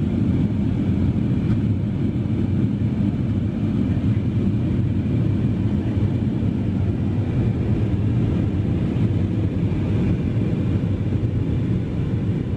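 Steady cabin noise inside an Airbus A320 airliner in flight: the engines and the airflow make an even, mostly low-pitched drone with no breaks.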